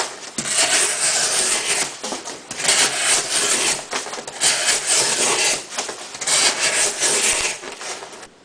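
Leatherman Wave's 420HC steel knife blade slicing through cardboard in long drawn cuts, a scratchy tearing rasp repeated about five times, each stroke a little over a second, with the last one trailing off near the end.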